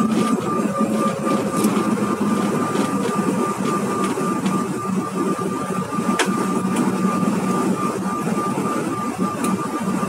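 Cabin noise of a Bombardier CRJ1000 rolling along the runway after landing: steady rumble of the jet engines and wheels with a thin steady whine, and a few light knocks and rattles.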